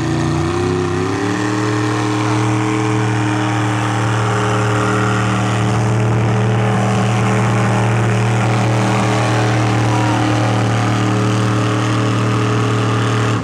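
Pulling truck's engine under heavy load, revving up about a second in and then held at high, steady revs.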